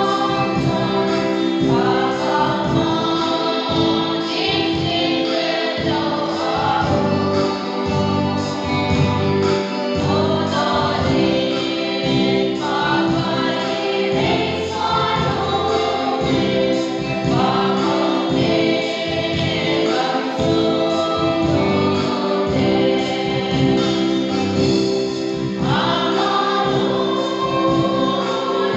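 Women's choir singing a hymn.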